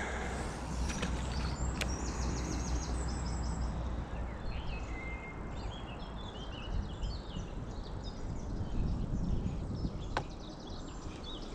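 Outdoor ambience: small birds singing with repeated chirps and trills over a steady low rumble of wind noise, with two sharp clicks, one about two seconds in and one near the end.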